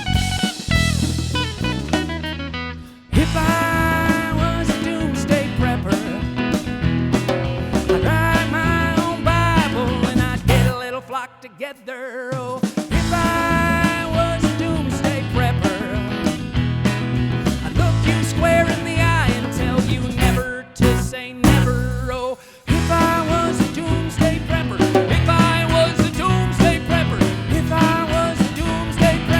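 Live band playing an instrumental passage with guitar and drums, breaking off briefly about eleven seconds in and twice more around twenty-one seconds before carrying on.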